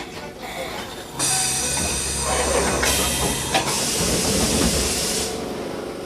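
Loud compressed-air hiss from a stopped Enoshima Electric Railway 1000-series train, with a low steady hum, starting suddenly about a second in, breaking briefly, and cutting off suddenly after about four seconds.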